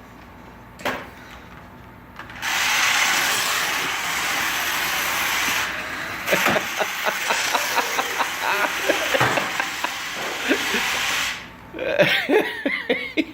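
Toy remote control car's small electric motor and gears whirring steadily as it drives, with rapid rattling ticks over the second half, stopping abruptly about a second before the end. A voice is heard briefly near the end.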